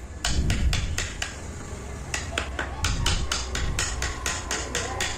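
Rapid mallet taps on a large wood-carving chisel, about four to five a second with a brief pause, setting in the outline cuts of a carved design.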